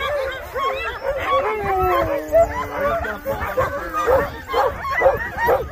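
A yard of sled dogs barking and yipping over one another, with one long howl starting about a second and a half in that slides down in pitch.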